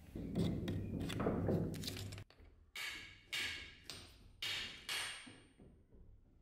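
Metal handling and scraping on an anvil for about two seconds, then about six hammer taps on metal roughly half a second apart, each ringing briefly.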